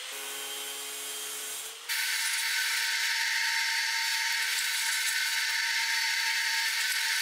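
Drill press running and drilling a hole through steel angle iron: a steady motor whine with the hiss of the bit cutting, stepping up to a louder, even level about two seconds in.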